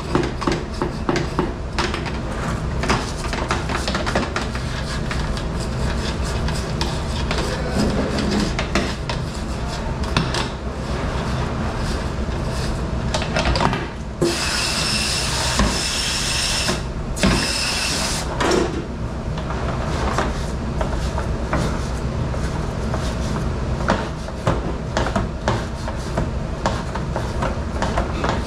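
Metal muffin tins being scrubbed with a scouring pad and knocked against a stainless-steel sink: repeated scraping and clattering over a steady low machine hum. About halfway through, a loud hiss with a high whistling edge runs for about four seconds, broken once.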